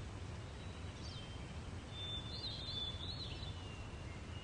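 Birds calling at dawn: a short whistled note about a second in, then a longer run of warbling, gliding whistles, over a steady low background noise.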